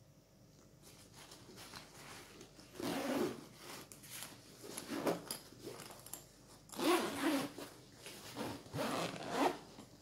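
Zippers on a laptop backpack being pulled, four louder rasping runs about two seconds apart with lighter scratching between.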